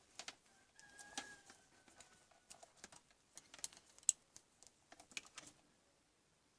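Irregular light clicks and taps, with a faint brief tone about a second in.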